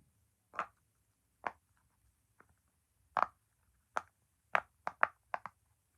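Heart-shaped silicone pop-it fidget having its bubbles pressed one at a time: about ten short sharp pops, spaced out at first and coming quicker in the last couple of seconds.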